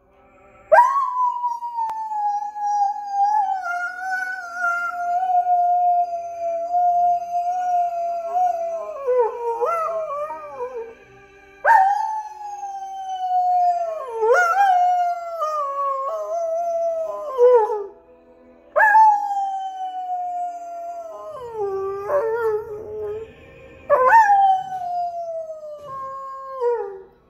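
German Shepherd dog howling along to opera from a television: four long howls, each starting suddenly high and gliding slowly down in pitch. Opera music plays faintly underneath.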